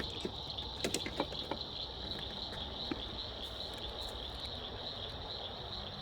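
Steady high-pitched insect chorus, with a handful of sharp clicks about a second in.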